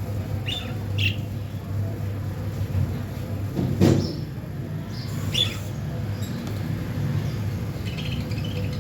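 Budgerigars giving a few short chirps, with one knock just before four seconds in, over a steady low hum.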